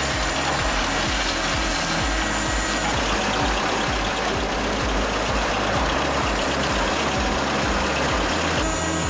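Heavy machinery running with a steady, loud mechanical noise, with background music carrying a bass beat underneath. The sound changes abruptly near the end.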